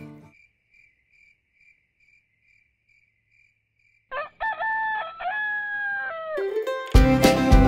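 Crickets chirping faintly in a steady pulse, about two or three chirps a second. About four seconds in a rooster crows once, a long cock-a-doodle-doo. Bluegrass music starts near the end.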